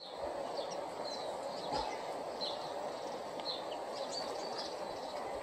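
Small birds chirping and twittering in frequent short, high notes over a steady, even rushing noise.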